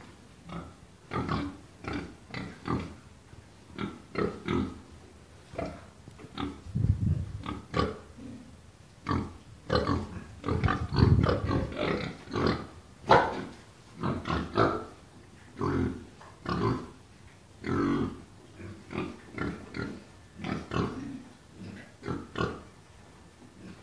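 Young domestic pigs in a pen grunting and oinking in short separate calls, about two a second, loudest around the middle.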